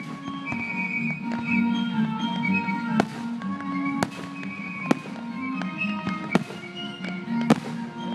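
Aerial firework shells bursting, about six sharp booms roughly a second apart starting about three seconds in, over music playing in the background.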